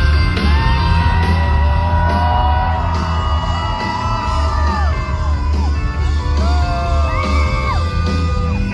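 Live rock band playing through a big concert sound system, with heavy bass, as heard from inside the crowd. Fans yell, whoop and sing along over the music.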